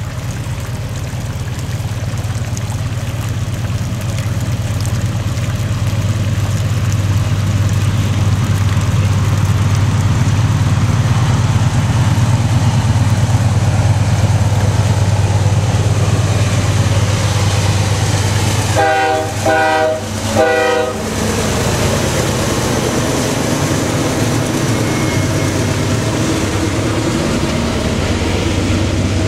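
Diesel freight locomotive approaching and passing, its engine rumble growing louder, with three short horn blasts about two-thirds of the way through; the train's cars then roll by.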